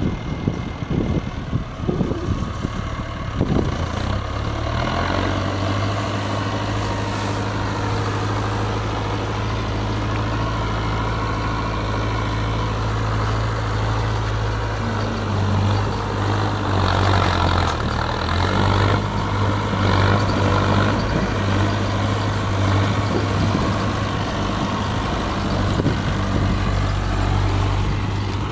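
Yanmar Arjun YH 700 combine harvester's diesel engine running steadily after a few irregular knocks at the start. A louder rush of machine noise rises over the engine for a few seconds in the middle.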